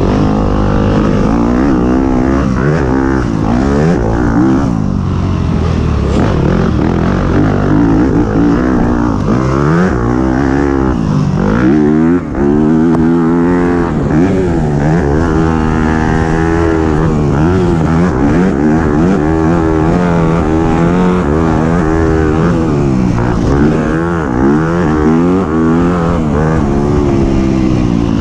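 Racing engine at full effort, its pitch climbing and dropping again and again as the vehicle accelerates, shifts and slows through a lap.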